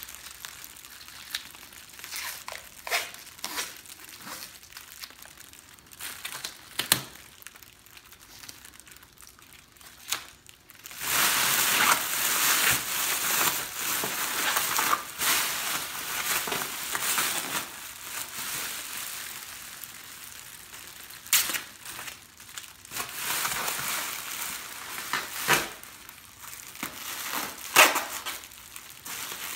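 Blizzard Blanket survival blanket crinkling as gloved hands gather and fold it. Scattered crackles at first, then dense, steady crinkling about a third of the way in that lasts several seconds before easing back to occasional sharp crackles.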